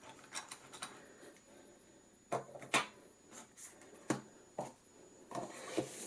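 Handling noise of a small wind-up toy robot and its cardboard box: a few separate light knocks and clicks with faint rustling, spread irregularly over several seconds.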